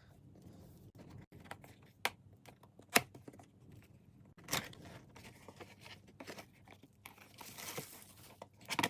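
A cardboard product box being handled and opened: a few sharp taps and clicks, then a longer scraping, tearing rustle near the end.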